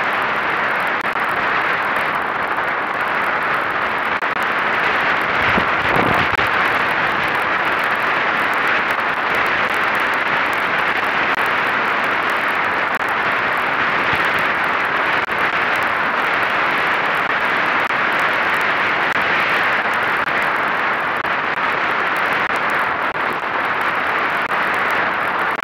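Steady rush of wind and water from an A-Class catamaran sailing at about ten knots, heard as an even hiss on the camera's microphone, with hull spray visible alongside. There is a brief low thump about six seconds in.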